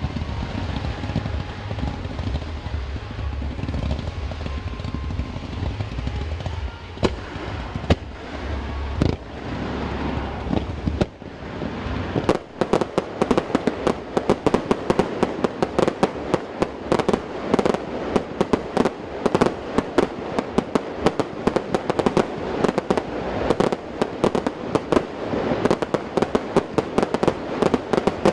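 Fireworks starmine barrage. For the first ten seconds or so there is a low rumble with an occasional bang. Then, about twelve seconds in, a dense run of launches and bursts begins, several sharp bangs and crackles a second.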